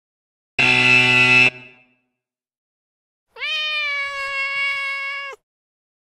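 Two preview sound effects played in turn: a harsh buzzer sounding for about a second, then, after a short gap, a cat meowing once in one long, drawn-out meow lasting about two seconds.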